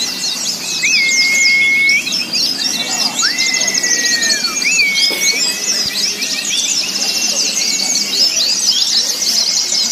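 Many white-eyes (pleci) singing at once, a dense, fast chorus of high twittering chirps. A few long level whistles stand out about a second in and near the middle, one sliding down in pitch.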